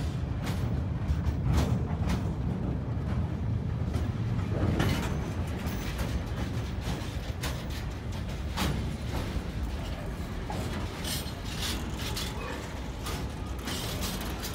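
Freight train of sliding-wall covered wagons passing at close range: a steady low rumble of wheels on the rails, with irregular knocks and clatter from the wagons and running gear.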